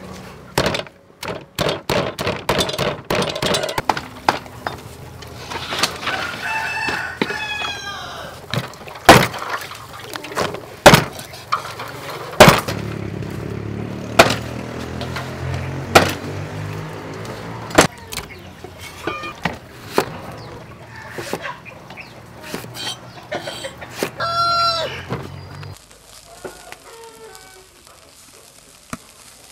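A wooden pestle pounding in a stone mortar and a cleaver chopping on a wooden board: sharp knocks, rapid at first, then about one every two seconds. A rooster crows about seven seconds in and again near the end of the knocking.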